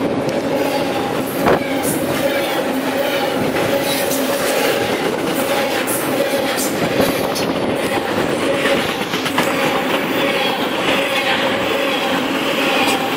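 Freight train cars rolling past close by: a steady rumble and rattle of steel wheels on the rails, with a few sharp clicks and faint steady squeal tones from the wheels.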